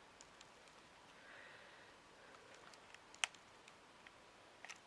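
Near silence with a few faint clicks and taps from small craft materials being handled on a work surface; one sharper click comes about three seconds in.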